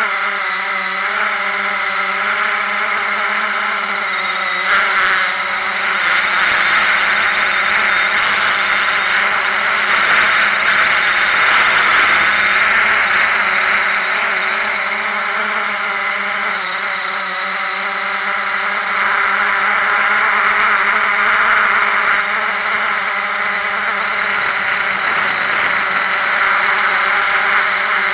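Small multirotor drone's electric motors and propellers whirring loudly and steadily, heard from the drone's own camera as it lifts off the paving and flies; several pitched tones that waver slightly with the throttle.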